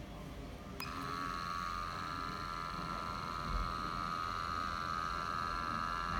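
A button click on a CheckPoint II headspace gas analyzer, then its small sampling pump starts and runs with a steady high whine. The pump is drawing gas through a needle from a sealed coffee capsule to measure its oxygen.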